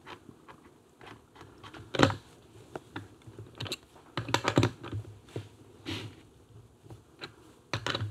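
Scattered light clicks and clinks of small metal parts and hand tools being handled at a motorcycle engine's clutch: a nut, a small bottle and a socket wrench. The loudest click comes about two seconds in, and there is a quick cluster of clicks about halfway through.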